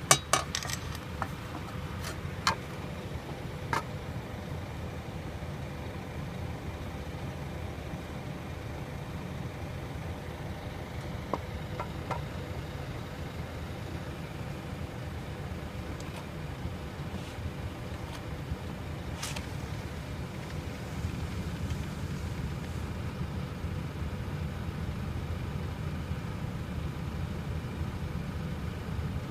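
Diesel engines of parked coaches idling, a steady low rumble left running while the coaches stand still. A few sharp clicks come in the first few seconds.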